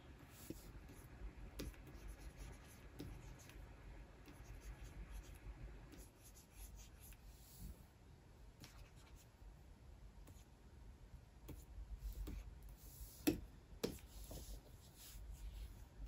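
Pen nib scratching and tapping on the surface of a Wacom Cintiq 24 Pro pen display while drawing strokes, faint, with a couple of sharper taps near the end.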